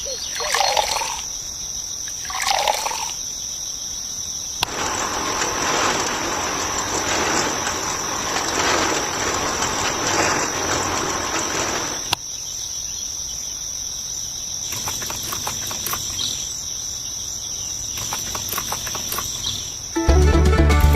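Outdoor nature ambience: a steady high insect drone, with a few bird calls in the first seconds and a stretch of running water in the middle. Music with a beat cuts in about a second before the end and is the loudest thing.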